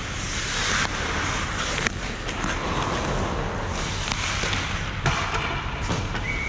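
Ice hockey practice on a rink: skate blades scraping and carving across the ice in swells, with a few sharp clacks of sticks and puck.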